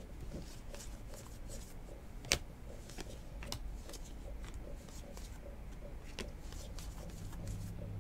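Football trading cards being sorted by hand, card stock sliding and flicking against the stack in a run of light clicks and rustles, with one sharper click a little over two seconds in.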